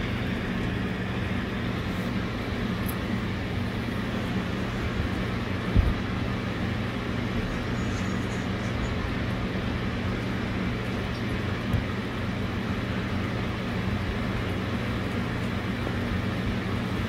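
Wet street ambience in the rain: a steady hiss over a low steady hum, broken by two short thumps about six and twelve seconds in.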